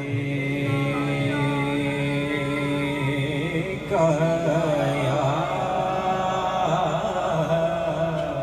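A young man singing a manqabat solo into a microphone over a PA, drawing out long, wavering melismatic notes. About four seconds in, his voice jumps higher and louder.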